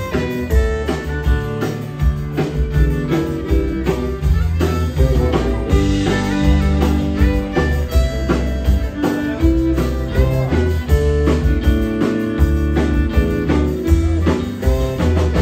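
Live country band playing with fiddle, acoustic and electric guitars, bass and drums, with a steady beat.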